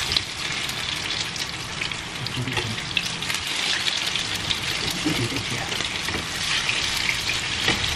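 Tortang giniling (ground-meat omelette) frying in hot oil in a pan: a steady sizzle with fine crackling throughout.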